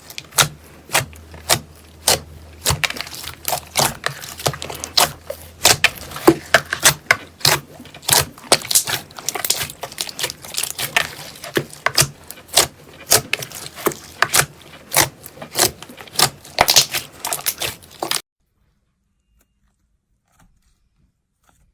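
Slime being squeezed and pressed, giving a run of sharp clicking pops and crackles, two or three a second, that stops abruptly near the end.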